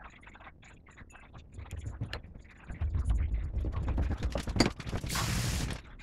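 Rapid mechanical clicks and knocks over a low rumble that gets louder about three seconds in, with a short burst of hiss near the end.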